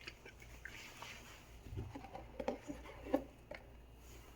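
Faint rustling and light taps of cardboard packaging being handled as a tablet box is opened, with a few slightly sharper clicks in the middle.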